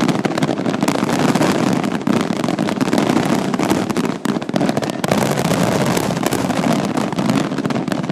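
Aerial fireworks fired as a rapid barrage: many shells bursting in quick, overlapping succession, making a continuous loud rumble and crackle with sharp bangs throughout.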